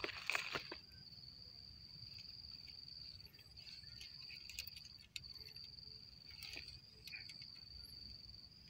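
Steady high-pitched insect trill, briefly broken twice, with a few clicks and rustles in the first second.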